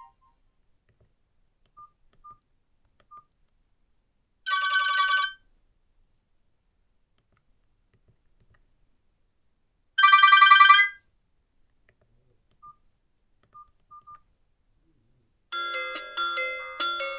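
Nokia 5310 feature phone playing its built-in ringtones through its small speaker: a few faint single beeps, two loud trilling electronic tones of about a second each, and near the end the start of a chiming, mallet-like ringtone melody.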